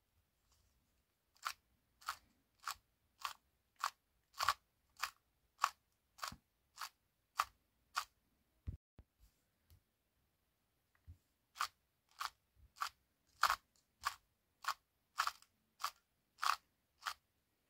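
Layer turns of a GAN 2x2 speedcube, each turn a short crisp click, about one every 0.6 s. A run of a dozen turns, a pause with a single low knock, then another run of about a dozen, each run one algorithm.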